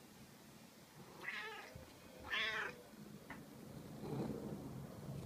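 Domestic cat meowing twice, about a second apart, the second meow louder, followed by a quieter, lower sound near four seconds in.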